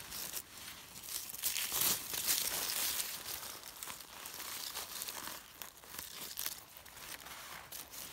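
Dry fallen leaves and forest litter rustling and crackling as hands clear them aside and pick a bolete mushroom. The rustling is heaviest about two seconds in and lighter afterwards.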